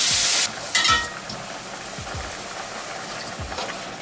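Broth sizzling loudly as it hits hot oil and fried onion-spice paste in a stainless steel pan; the hiss drops away sharply about half a second in. A metal clink near one second, then a quieter simmering hiss while a spatula stirs.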